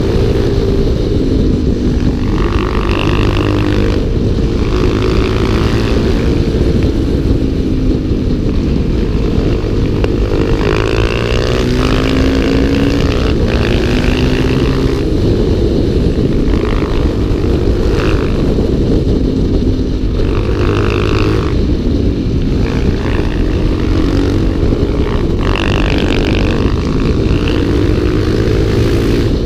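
Motorcycle engines on the move, the pitch climbing and falling again and again as the throttle opens and closes through the bends, over a constant rush of wind and road noise.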